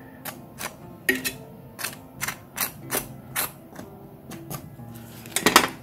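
A table knife clicking and scraping against the crisp crust of a baked cheese bread on a baking tray. It makes irregular sharp clicks, about two or three a second, with a louder cluster near the end.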